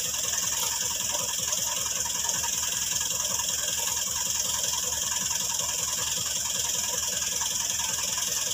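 Farm tractor's diesel engine idling steadily, a fast even clatter, with a steady high hiss over it.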